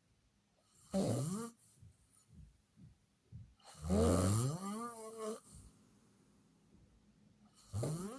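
A person snoring loudly: three drawn-out snores with a buzzing, pitched tone that slides down and wavers. The middle one, about four seconds in, is the loudest and longest, with a low fluttering in the breaths before it.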